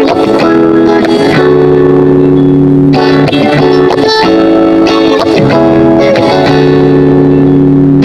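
Background music with held chords that change every second or so.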